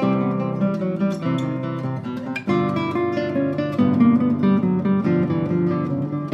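Guitar music played on Spanish classical guitars, the credited instruments being an Antonio Marín (Granada, 1979) and a José Ramírez (Madrid, 1979), with a continuous run of plucked notes and chords.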